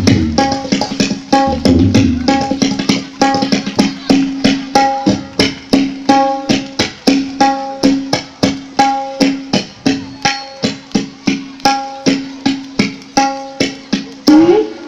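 Tabla played in a steady, even rhythm of sharp strokes, about three a second over the drum's ringing pitch, imitating a running train's wheels. Near the end a last loud stroke slides upward in pitch and the playing stops.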